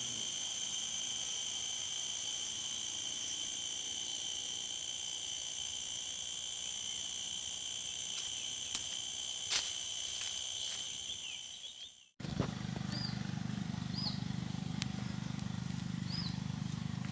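Steady, high-pitched drone of a night insect chorus. About twelve seconds in it cuts off suddenly, giving way to a low steady hum with short chirps repeating roughly once a second.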